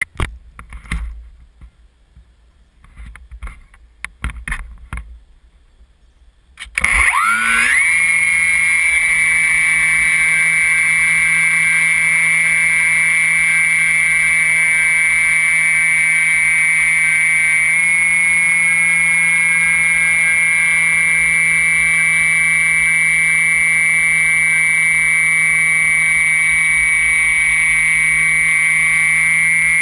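Faint handling knocks close to the camera. About seven seconds in, the electric motor and propeller of a HobbyKing Phoenix glider spin up quickly to a steady high whine, which holds during the climb and starts to wind down at the very end.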